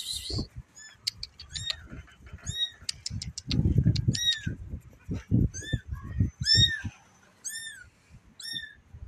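Very young calico kitten mewing over and over: short, high-pitched cries that rise and fall, about nine of them roughly a second apart. Low thuds and rumble come through the middle of the stretch.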